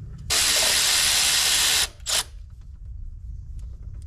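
Cordless electric ratchet running under power to drive in a freshly greased suspension pivot bolt on a quad: one run of about a second and a half, then a short blip.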